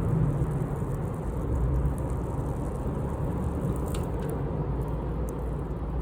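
Campfire burning with a few faint crackles, the clearest about four seconds in, over a steady low rumble.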